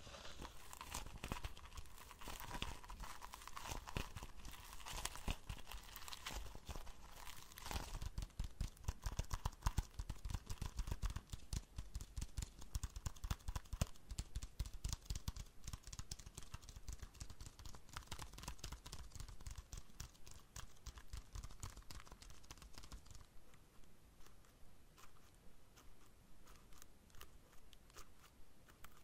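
Plastic foliage of artificial potted plants rubbed and crinkled close to the microphone: a dense crackling of many small clicks, loudest through the middle and thinning to sparser, regular ticks near the end.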